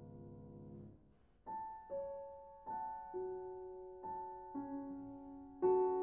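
Background music: a soft sustained drone fades out about a second in, then a slow piano melody begins with single struck notes that ring and decay, building to a fuller, louder chord near the end.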